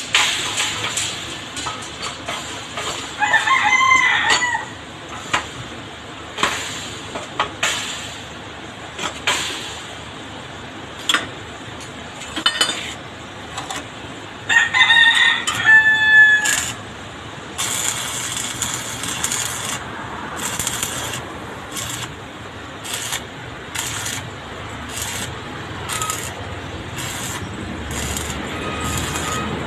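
Arc welding on a steel post: the arc crackles and hisses in short bursts, irregular at first and then about once a second through the second half. A rooster crows twice, about 3 seconds in and again around 15 seconds in.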